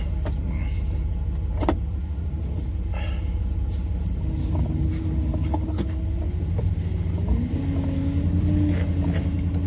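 Car engine and road rumble heard from inside the cabin while driving. About halfway through, an engine tone climbs in pitch, dips briefly, then holds steady a little higher; a sharp click sounds just under two seconds in.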